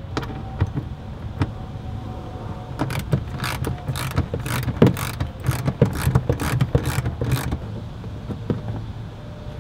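Sharp plastic clicks and knocks as fingers work the plastic rivets and splash panel at the lower corner of a BMW E39 front bumper, a quick run of them for about four seconds from three seconds in, over a steady low hum.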